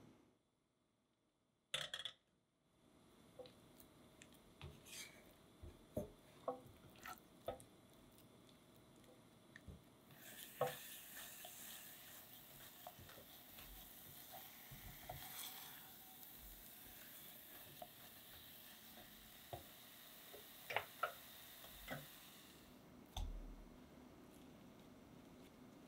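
Silicone spatula stirring and pressing thick choux dough in an enamel saucepan: faint, scattered soft squishes and taps against the pan. There is a sharp click about two seconds in, and a steady hiss runs under the stirring from about ten seconds in until near the end.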